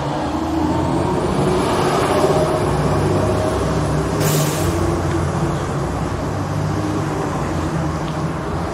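Fire truck engine running in street traffic, a steady low drone, with a short air-brake hiss about four seconds in.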